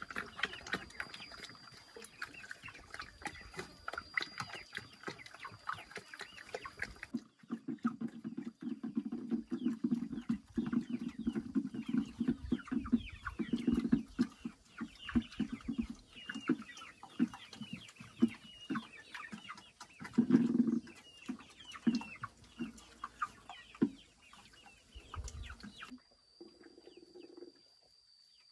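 Chickens clucking in short, repeated calls, the sound changing abruptly about a quarter of the way in and again near the end.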